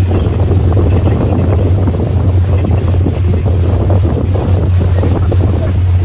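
Motor yacht's engines running steadily underway as a loud low drone, with wind buffeting the microphone.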